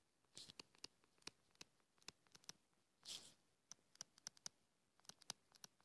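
Faint, irregular ticks of a stylus tip tapping and dragging on a tablet screen during handwriting, with one brief soft hiss about three seconds in.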